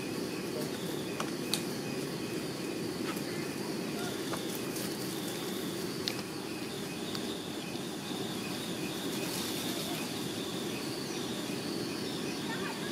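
Steady outdoor background noise with faint, repeated high chirping and a few light clicks.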